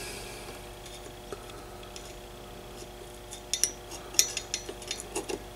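A few light metallic clicks and clinks, mostly about three and a half to four and a half seconds in, as the pins of a 3-500Z transmitting tube are worked in their tube-socket terminals. The pins are being checked one by one for terminals that have come desoldered and loose.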